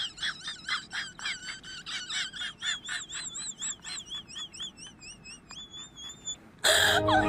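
Rapid high-pitched bird-like chirps, about four a second, turning into warbling, wavering trills, followed near the end by a short loud burst.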